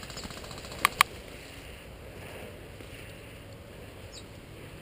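Tall grass swishing against a player and his gear as he walks a grassy path, with two sharp clicks close together about a second in.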